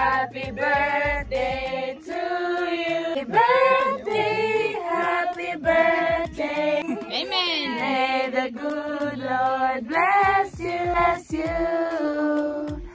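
A group of women singing together without accompaniment, in long held notes with several voices overlapping.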